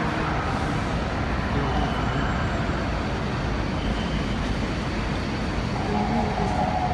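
Steady road-traffic noise: cars running and passing on a covered roadway, a continuous low rumble.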